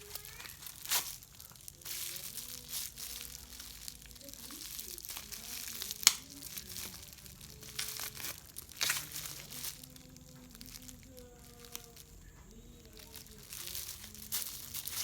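Parcel packaging crinkling and tearing as it is unwrapped by hand, in repeated rustling bursts with a sharp snap about six seconds in.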